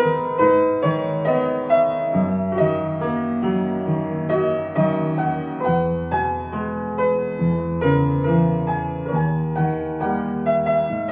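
Piano music: a gentle melody of notes changing about every half second over held low notes.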